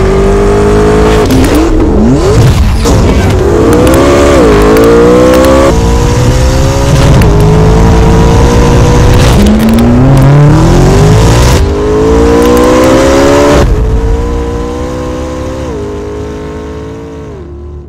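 McLaren 12C twin-turbo V8 running through a Fi Exhaust valved catback and catless downpipes, accelerating hard: the pitch climbs in each gear and drops sharply at each of several upshifts. It fades away near the end.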